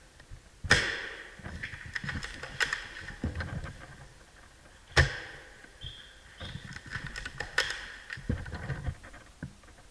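Airsoft gun firing at an opponent: several sharp cracks, the loudest about a second in and at about five seconds, with lighter clicks and rustling between.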